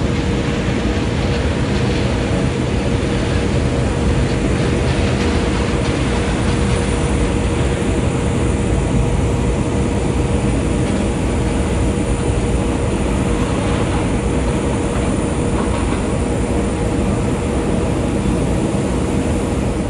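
Jet aircraft engines running nearby: a steady, loud rumble and hiss with a constant whine over it.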